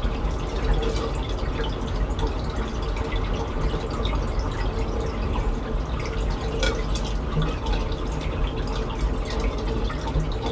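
Steady trickle of running water with many small drips and splashes over a steady low hum, typical of a reef aquarium's water circulation.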